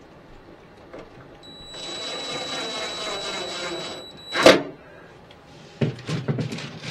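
DeWalt cordless driver running for about two seconds with a steady high whine as it drives a screw into a cabinet hinge. A single sharp, loud click follows, then a few dull knocks near the end.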